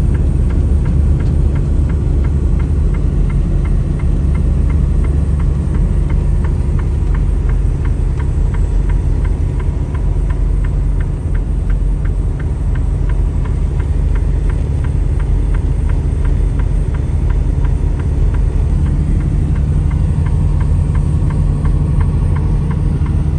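Semi truck driving slowly on chained tyres: a steady low engine and road rumble with a faint, even ticking running through it.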